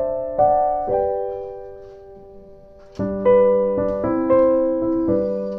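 Slow background piano music: a few single notes fade out, then after a pause of about two seconds a new phrase of notes and chords begins.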